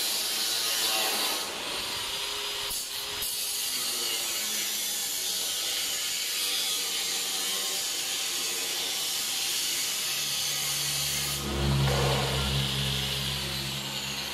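Angle grinder with a cut-off disc cutting galvanized sheet steel, a steady high hiss. About ten seconds in a lower hum joins, and it grows briefly louder near the end.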